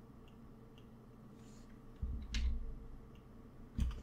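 Faint, sparse clicks of a computer keyboard and mouse as editing shortcuts are pressed, with two louder knocks, about two seconds in and near the end.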